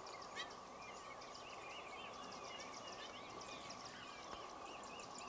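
Quiet bush ambience: many small birds chirping and trilling in the background over a steady, even hum.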